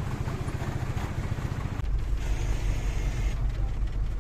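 Dala-dala minibus engine running with a steady low throb; from about two seconds in it changes to a deeper, stronger rumble heard from inside the minibus cabin.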